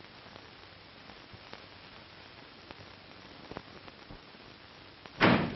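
Steady faint hiss of an old film soundtrack with a few scattered faint clicks. Near the end comes one sudden, short, loud noisy burst.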